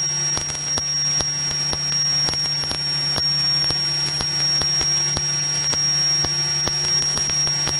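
Steady cabin drone of a Cirrus SR22 Turbo's six-cylinder engine and propeller in cruise, with a steady high-pitched whine and a run of faint quick clicks over it.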